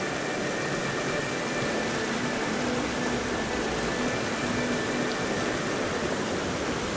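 Steady rushing of a shallow creek riffle, water running over rocks close by.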